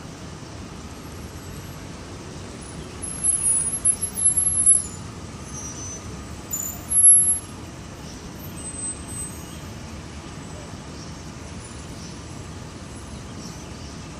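Steady rumble of city traffic, with a few loud, very high-pitched squeals about three seconds in and again near the middle.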